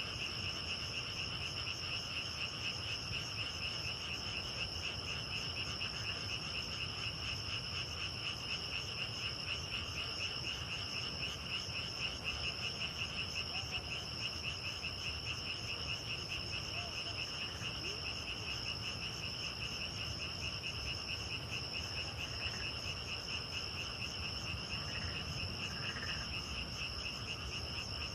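Night chorus of grass insects: a continuous, finely pulsing high trill in two steady pitches, with a few frog calls beneath it.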